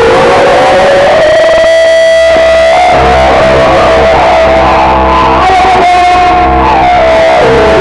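Harsh noise performance: a loud, saturated wall of distorted noise from effects pedals driven through an amplifier. A single strong tone glides upward and holds, then dips and climbs again near the end, over a low rumble that comes in about three seconds in.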